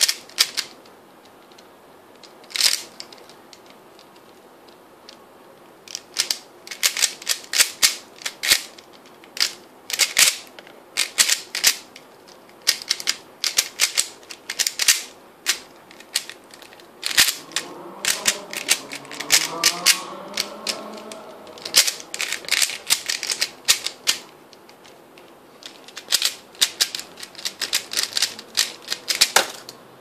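Plastic 3x3 speedcube being turned quickly by hand: rapid clattering clicks of the layers snapping round, in quick bursts with short pauses between them. The clicking stops shortly before the end as the solve finishes.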